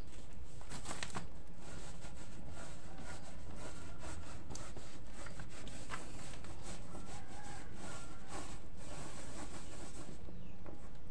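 Damp cassava-flour granules for tiwul being shaken and rubbed by hand in a woven bamboo tray: soft rustling with many scattered light ticks, over a steady low background noise.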